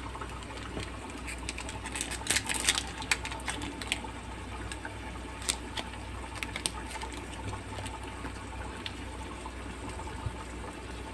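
Soup simmering in a metal wok on a gas burner: a steady bubbling hiss with scattered sharp pops and clicks, most of them about two to three seconds in.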